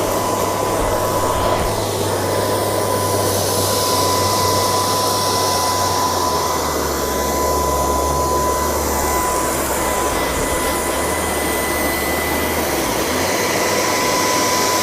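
LG R9 robot vacuum running, a steady rush of suction with a high whine. Its low hum drops lower about six seconds in and comes back up near the end.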